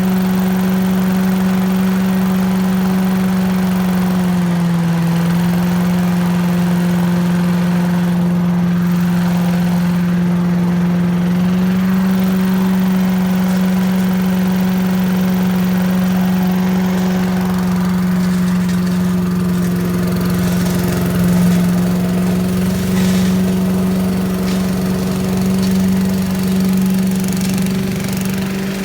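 1980s Billy Goat lawn vacuum's small engine running steadily. Its pitch sags slightly about five seconds in and picks back up about seven seconds later, and it runs a little less evenly in the last several seconds.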